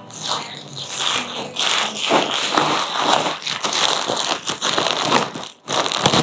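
Thin plastic mailer bag rustling and crinkling as it is pulled open and handled, with a brief break about five and a half seconds in.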